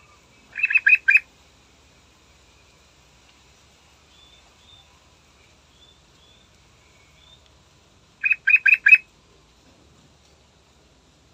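Yellow-vented bulbul singing: two bursts of four quick, loud notes, about a second in and again near the end, with faint soft chirps between them.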